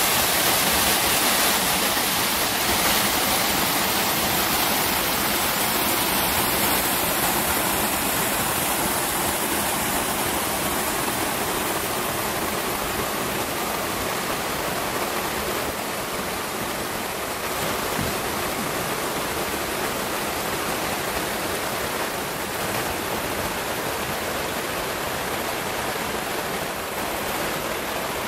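Mountain river rushing steadily over rock slabs and boulders in small cascades into pools, growing slightly quieter over the stretch.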